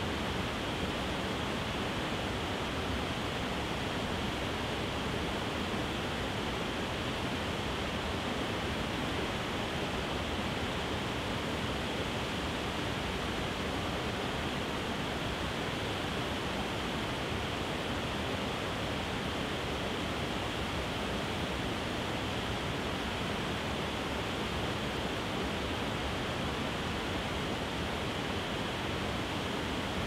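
Waterfall: white water pouring over a wide series of low rock ledges, a steady, unbroken rush of noise.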